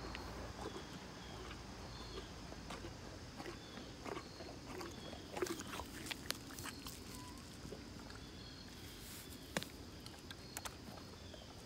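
Pony biting and chewing a corn cob: faint, scattered crunches and clicks, the sharpest about five and a half and nine and a half seconds in.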